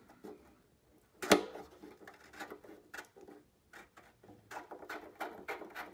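Fuel petcock sediment bowl being unscrewed by hand: one sharp click about a second in, then a run of small clicks and ticks as it is turned.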